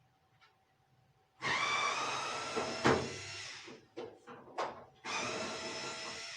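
Cordless drill-driver spinning in two runs of a couple of seconds each, backing out the dryer's cabinet screws. A sharp click comes partway through the first run, and a few light taps fall between the runs.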